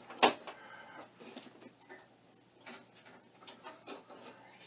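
Small electronics hardware being handled: one sharp click just after the start, then a few faint clicks and taps, as a user port adapter and prototype circuit board are unplugged and put aside.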